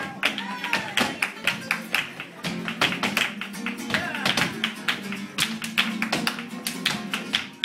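Flamenco performance: guitar playing under many rapid, sharp percussive taps, with some gliding pitched lines over it.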